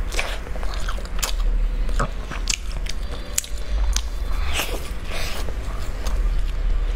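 A person biting and chewing a crisp fried stuffed pastry close to a clip-on microphone, with irregular sharp crunches of the crust between quieter chewing.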